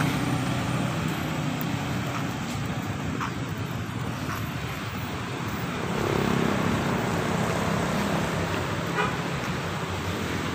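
Steady low rumble of a motor scooter's engine riding away down the lane, over general motor-traffic noise. It swells slightly about six seconds in.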